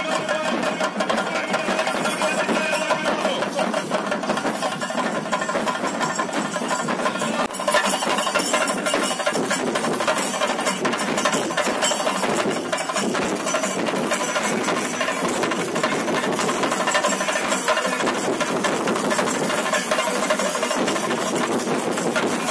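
Chenda drums beaten in a fast, continuous roll, the dense rhythmic drumming that accompanies a theyyam fire dance. A steady pitched tone sounds over the drums for the first few seconds, then fades.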